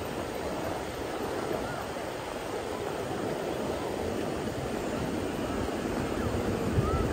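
Steady beach ambience: a continuous wash of surf and wind with faint voices in the distance, and a gust of wind hitting the microphone near the end.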